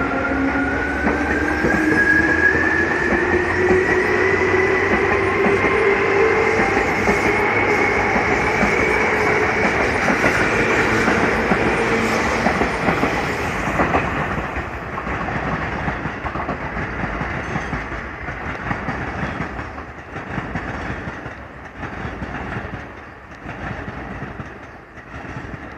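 Seibu New 2000 series electric commuter train pulling out and accelerating, its motor whine rising steadily in pitch over the first ten seconds or so, with wheels clicking over rail joints. The sound fades in the second half as the train draws away.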